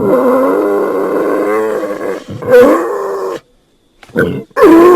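A man's gravelly voice making loud, drawn-out pig-like growling and grunting noises, the pitch wavering up and down. A long call runs past two seconds, a shorter one follows, and after a brief silence a short grunt and another long call start near the end.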